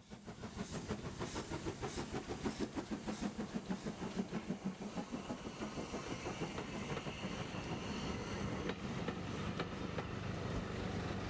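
Steam locomotive passing, with a regular beat from its exhaust, followed by the carriages rumbling past and their wheels clicking over the rail joints.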